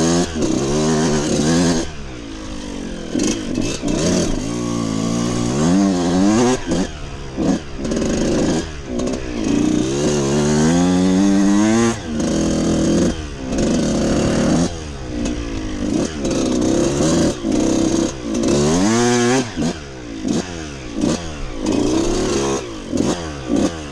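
Dirt bike engine working under load, revving up and down with the throttle: the pitch climbs steeply under acceleration several times, about 6, 10 to 12 and 19 seconds in, and drops back each time the throttle is closed.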